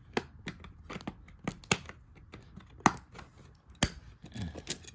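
LEGO plastic track pieces clicking and knocking as they are handled and pressed onto a baseplate, in sharp, irregular clicks. The loudest knocks come about three and four seconds in.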